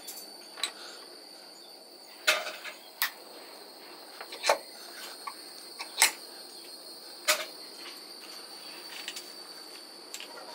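A steady high-pitched insect trill runs throughout, broken by about six sharp clicks and taps, the loudest a little after two, four and six seconds in and again near seven. The clicks fit small metal parts being handled against a steel bench vise as a metal air-gun valve body is set in its jaws.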